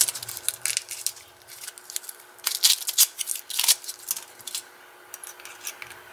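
Metal keys clicking and jangling against each other as they are handled and tried in a padlock, a string of sharp irregular clicks that thins out near the end.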